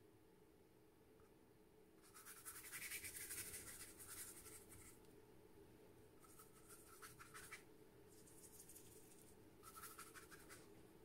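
Faint scratching of a flat watercolour brush's bristles scrubbing across watercolour paper, in three stretches: the longest starts about two seconds in, a shorter one comes in the middle, and a brief one comes near the end. A low, steady room hum runs underneath.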